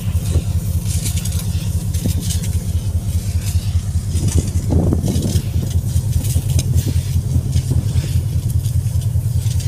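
Loud, steady low rumble on the open top deck of a ship under way, with a hiss of water spray from a fire hose washing the deck and a brief louder surge about halfway through.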